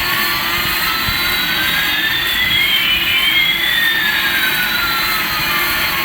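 Toy Airbus A380's electronic jet-engine sound effect: a steady hiss with one whistle rising in pitch and another falling, the two crossing about halfway through.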